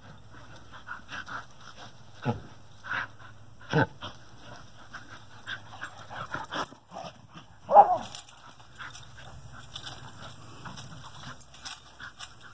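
Two Norwegian Elkhounds playing: panting and scuffling, with a few short dog vocalizations, the loudest a single pitched yip about eight seconds in.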